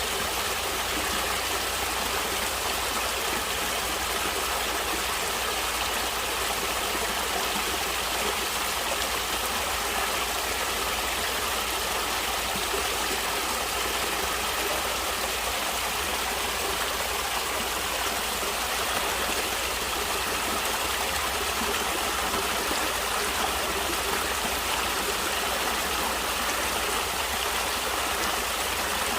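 Natural running water flowing steadily, an even hiss of moving water with a low rumble underneath that holds without change.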